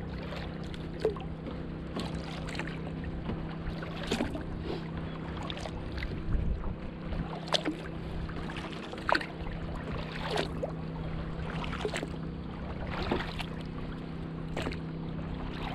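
Double-bladed kayak paddle strokes: the blades dip into calm water with short splashes and drips, roughly every second and a half, over a steady low hum.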